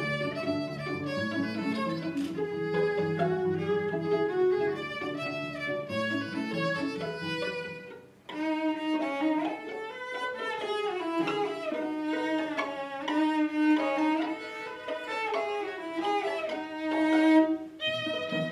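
String quartet of violins, viola and cello playing live, bowed notes overlapping in several parts. About eight seconds in the playing breaks off for a moment, then resumes with the upper instruments, and the low cello line comes back in near the end.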